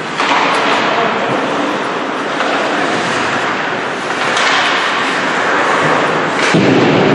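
Ice hockey play: a steady scraping hiss of skate blades on the ice, broken by a few sharp knocks from the puck and sticks hitting the boards and each other.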